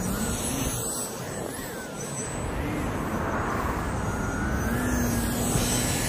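Steady outdoor city ambience: a low rumble of traffic under an even hiss, with faint wavering whistle-like tones.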